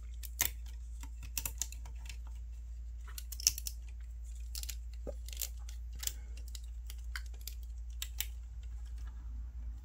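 Irregular light plastic clicks and taps from a snap-together plastic model kit figure being handled, as its limbs and joints are bent and posed. The strongest click comes about three and a half seconds in, and a steady low hum runs underneath.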